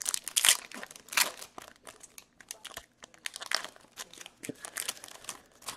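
Trading-card pack wrappers being torn open and crinkled by hand: a run of irregular crackles, loudest in the first second and again just before the end.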